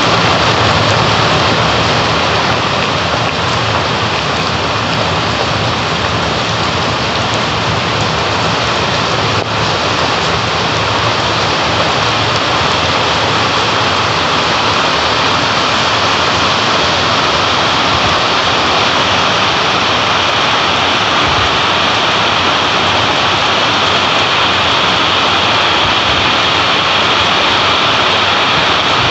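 Heavy rain falling steadily on a wet stone-tiled terrace: a dense, even hiss of drops splashing on the paving, unchanging throughout.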